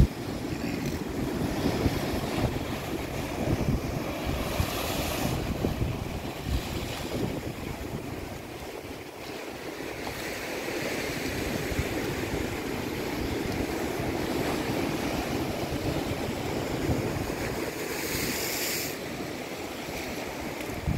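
Sea surf washing and breaking over rocks in a steady hiss, swelling louder around five seconds in and again near the end, with wind buffeting the microphone.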